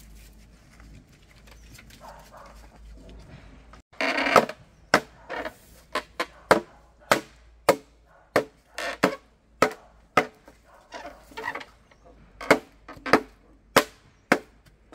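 Chopping: a blade striking wood in a run of sharp, uneven strokes, about two a second, starting abruptly about four seconds in after a quiet stretch.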